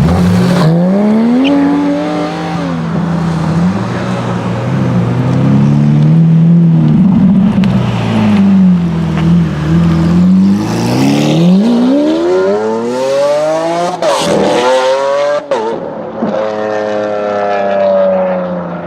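Lamborghini V12 engine revving and accelerating, its pitch sweeping up and down several times. It climbs to high revs, drops sharply once for a shift or lift-off, then climbs again before easing off near the end.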